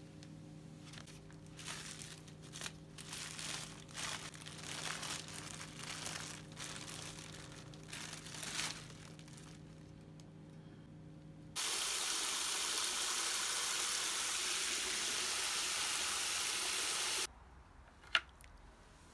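A plastic bag crinkling and rustling as it is cut and pulled off a bare-root tree's roots. Then about five seconds of water gushing steadily into a bucket, which stops suddenly, followed by a single click.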